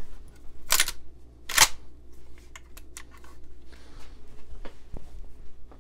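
A Marlin 336 lever-action rifle being lifted and set aside by hand. Two sharp knocks about a second apart near the start, the second the louder, then light clicks and taps of handling.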